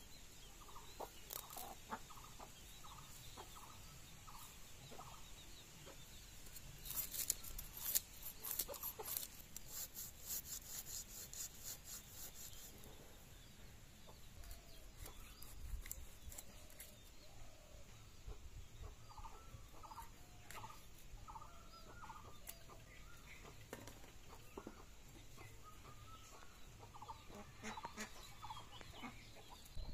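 Chickens clucking in short runs near the start, again past the middle and near the end. Between them, for several seconds, a quick series of scraping strokes as a snakehead fish is worked against a curved blade to clean off its scales.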